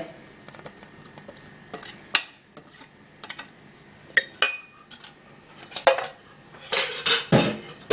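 Wire whisk clinking and scraping against a stainless steel mixing bowl as the bowl is tipped and emptied: a scatter of light clinks, one ringing briefly, and a longer, louder scrape near the end.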